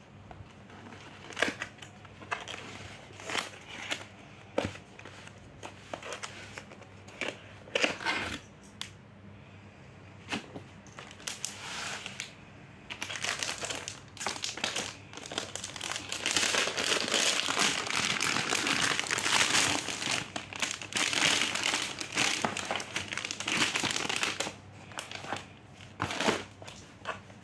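Unboxing sounds: a cardboard box being opened and handled, with scattered scrapes and taps, then clear plastic wrapping crinkling steadily for about ten seconds as it is pulled around a book, with a few more separate handling noises near the end.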